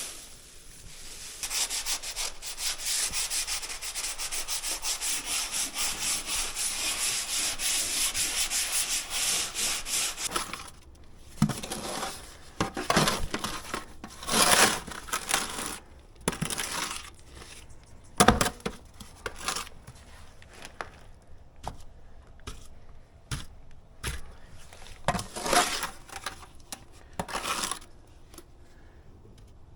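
Hand sanding with quick back-and-forth strokes for about nine seconds, then scattered scrapes and knocks.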